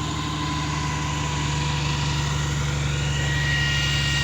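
Truck-mounted mobile concrete pump's diesel engine running steadily, with a faint high whine joining about three seconds in.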